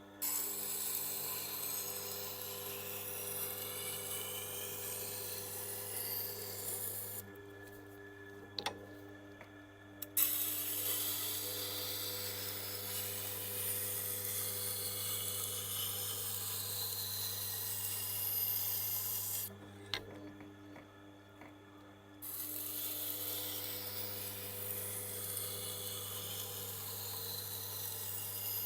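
Steel knife edge being ground on a Tormek T8 wet grinding wheel graded to about 1000 grit, over the grinder's steady motor hum. It is a gritty scraping in three long passes, with two pauses of two to three seconds where only the hum remains. The blade is being ground to raise a burr.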